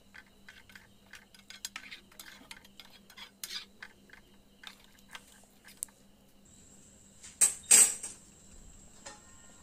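Steel ladle stirring thick curry in a metal pan, with many small clinks and scrapes against the pan's sides and bottom. Two louder metal clanks come about seven and a half seconds in.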